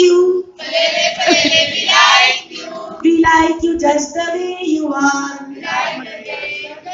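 A group of people singing together, women's voices most prominent, in phrases with brief breaks.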